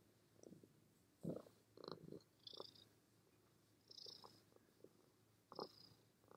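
Black-and-white domestic cat purring faintly while being stroked, with soft irregular rustles of hands rubbing its fur.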